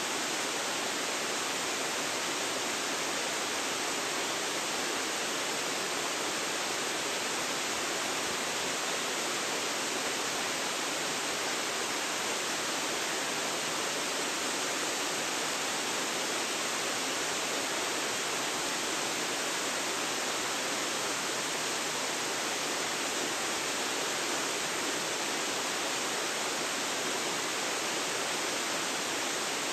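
Waterfall: water falling and splashing in a steady, even rush with no change. Recorded through an iPhone's built-in microphone.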